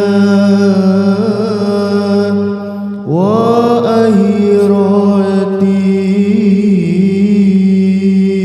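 Arabic devotional song (sholawat) sung in long, ornamented held notes. The voice sways around each held pitch, breaks off briefly about three seconds in, then swoops up into the next note of the line.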